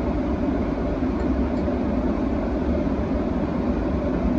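Steady airliner cabin noise in cruise flight: an even, low rush of airflow and engine noise.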